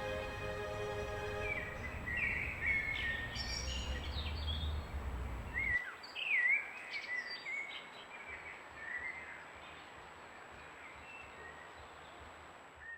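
Wild birds singing and calling, with short chirps and quick sweeping notes throughout. Sustained music tones fade out in the first couple of seconds, and a low rumble stops abruptly about six seconds in.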